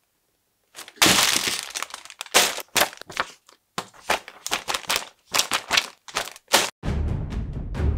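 Cardboard box being opened and plastic bags of building bricks handled, a string of sharp crackling and crinkling noises. Background music with a low beat starts about seven seconds in.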